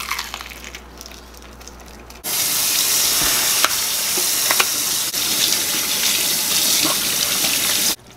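Kitchen tap running hard into a stainless steel sink while raw pork is rinsed under it by hand, with small splashes and clicks. The water starts suddenly about two seconds in and stops just before the end.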